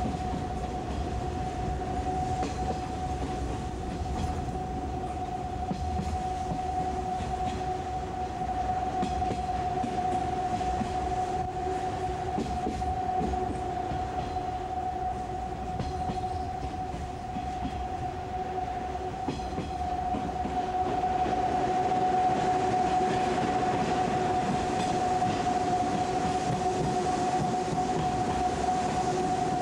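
Running noise heard inside a 185 series electric train car: a steady rumble of wheels on rail with a few faint rail-joint clicks and a constant high whine over it. The noise grows louder from about twenty seconds in, as the train runs into a tunnel.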